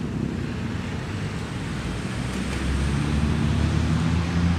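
Wind buffeting the microphone over steady road traffic noise, the low rumble growing stronger in the second half.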